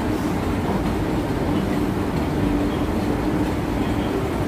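Railway station ambience: a steady rumble with a constant low hum.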